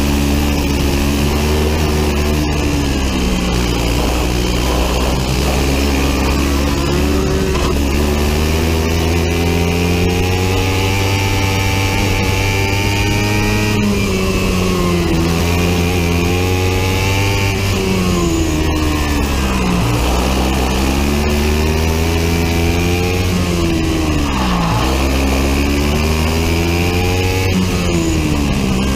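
Biland SA250 four-stroke 250 cc kart engine racing flat out from the onboard position, its pitch climbing steadily on the straights and falling away sharply under braking for the corners, several times over.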